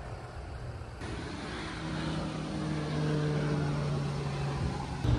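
A motor's steady drone, growing gradually louder over several seconds, from a passing vehicle or aircraft, over outdoor background noise.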